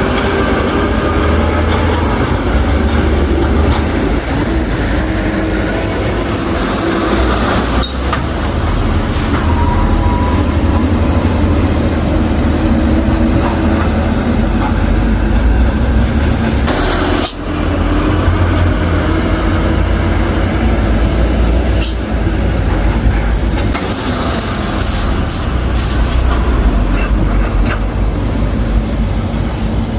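Heavy diesel machinery running steadily with a low rumble and a wavering whine, with a few sharp knocks, the clearest about seventeen seconds in.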